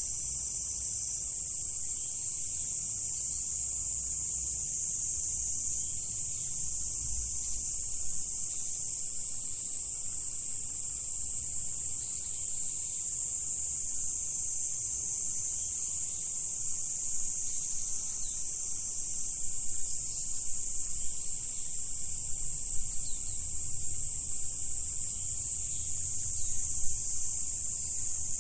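Chorus of insects in one steady, unbroken high-pitched drone, with a few faint ticks in the second half.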